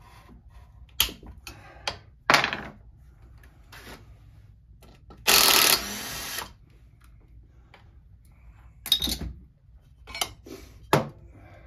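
Small cordless impact driver running in one burst of a little over a second, loosening screws on a chainsaw being taken apart. A few sharp clicks and knocks of tools and parts come before and after it.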